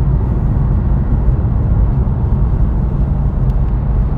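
Steady road and engine rumble of a moving car, with a deep low drone and no separate events.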